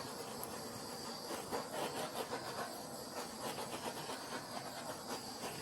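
Handheld torch flame running steadily over wet poured acrylic paint to pop air bubbles, with a light crackle in the hiss; it cuts off suddenly at the end.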